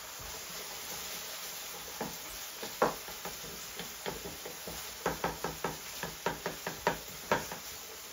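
Wooden spatula tapping and scraping against a ceramic-coated frying pan while stirring ground beef browning with tomato paste. The taps start about two seconds in and come quicker, several a second, toward the end, over a faint steady hiss.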